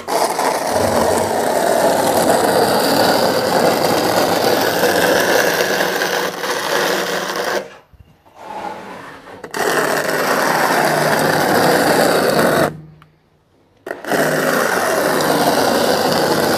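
Steel notched trowel scraping and combing tile adhesive across a rough cement wall, a steady scraping in three long stretches with two short pauses.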